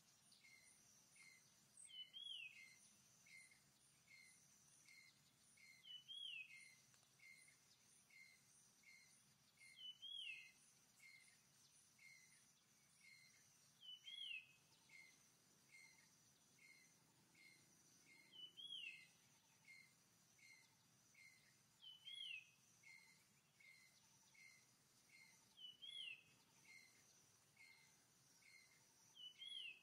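Faint woodland ambience of birds and insects: a bird repeats a short falling call about every four seconds, over quicker chirps about twice a second and a steady high insect hum.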